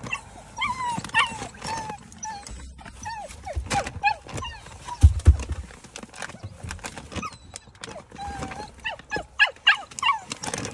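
A puppy whining and whimpering in a string of short, high, wavering cries. There is a dull low thump about five seconds in.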